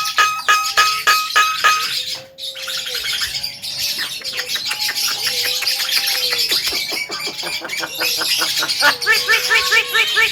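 Javan myna singing: a fast run of repeated clicking notes, then a varied chattering song with long whistled notes and a quick burst of chirps near the end.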